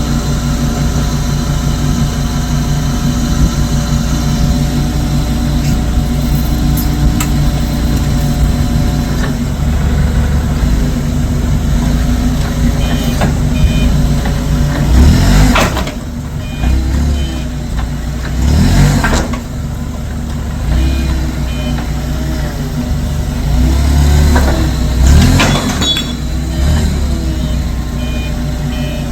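Electric disc grinder running steadily and cutting into welds on steel, with three heavier surges partway through as the disc bites harder.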